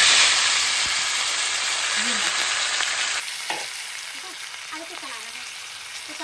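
Washed green peas tipped into hot mustard oil tempered with cumin, asafoetida and dried red chillies, making a loud burst of sizzling that eases into a quieter, steady frying hiss.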